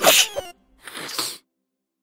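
A cartoon sneeze effect from the yellow robot character: a loud, short burst right at the start, then a second, softer burst about a second in. The music drops out around it.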